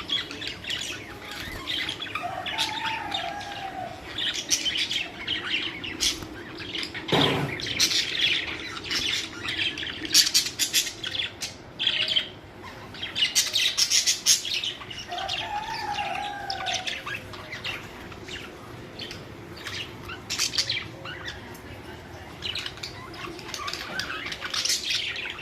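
Budgerigars chattering: a continuous stream of quick chirps and squawks, with short lower warbling phrases mixed in.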